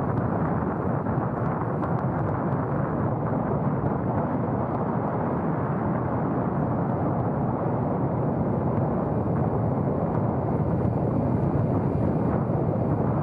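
Strong wind buffeting the microphone: a steady, heavy, rumbling roar of noise.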